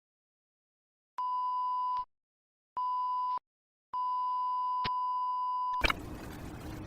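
Electronic beep tone at one steady pitch, sounding three times: short, short, then long. A click comes partway through the long beep, and right after it a noisy background with a low hum cuts in abruptly.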